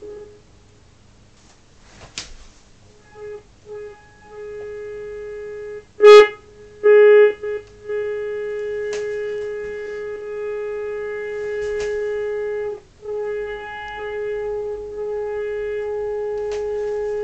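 Uniden 2020 transceiver receiving a signal generator's test signal as a steady tone with a buzzy edge, cutting in and out and changing level as the 10 m preamp trimmers are peaked: the peak is very touchy. It is loudest around six to seven seconds in, where there is a sharp click.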